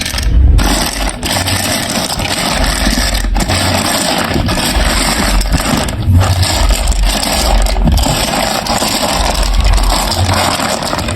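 Marbles rolling and clattering down a plastic marble-run track, a continuous rattling rumble full of small clicks.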